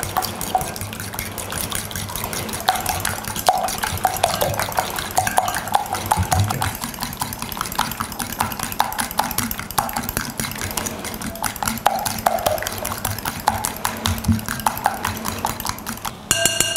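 Egg yolks, warm butter and sugar being mixed by hand in a bowl: a utensil clicks and scrapes rapidly and continuously against the bowl.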